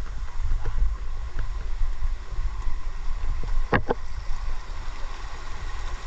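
Uneven low rumble of wind buffeting and handling noise on a hand-held camera's microphone, with two sharp knocks a little before four seconds in.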